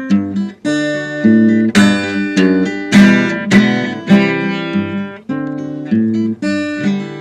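Acoustic guitar strumming chords in an instrumental break of a country song, with no singing. Fresh chords are struck every half second or so.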